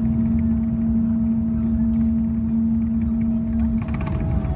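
Cabin noise of a Boeing 777-300ER with GE90-115B engines on its landing roll: a steady rumble of engines, airflow and wheels, with a strong steady hum that stops shortly before the end and a fainter higher tone throughout.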